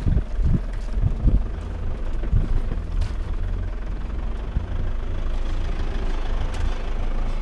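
Toyota Hilux running slowly over a rough dirt track, a steady low engine hum with road and wind noise. There are a few bumps and thumps in the first second or so.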